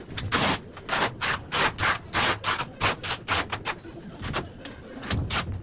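Steel trowel scraping tile adhesive across the back of a large ceramic tile, a quick run of short strokes about three or four a second, with a low thud near the end.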